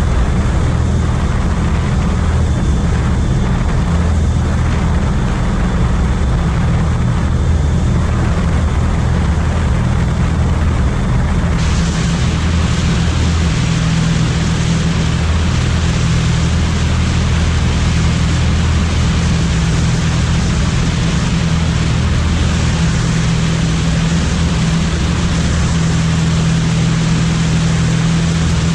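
Twin-turboprop aircraft engines and propellers running with a steady low drone and a thin high whine. About eleven seconds in, a much louder hiss comes in over the top and covers the whine.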